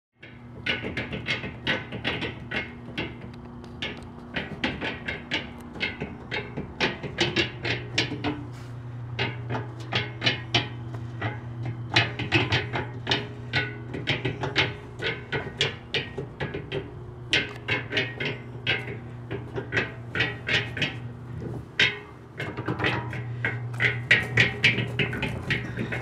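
Small electric concrete mixer running: irregular clanking and knocking from the turning drum and its drive, over a steady motor hum that comes and goes.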